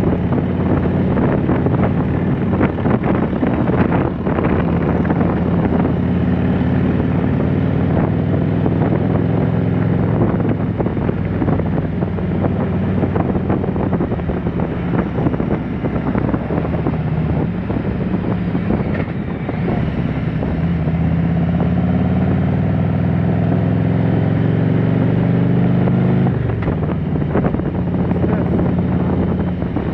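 Harley-Davidson Road Glide Special's V-twin engine running at road speed, with wind rushing over the microphone. Past the middle the engine note climbs steadily for several seconds under acceleration, then drops suddenly near the end.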